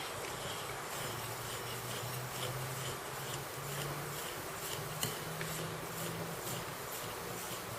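Cake batter being stirred in a bowl: faint, rhythmic scraping strokes, about two a second, over a low, steady hum.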